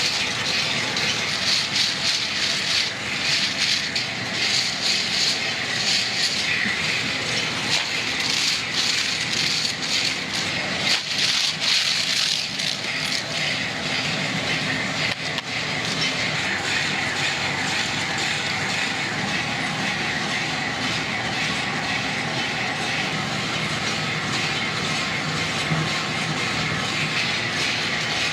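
Factory production machinery running with a dense, continuous rattling clatter of many small ticks, busier in the first half and evening out after about halfway.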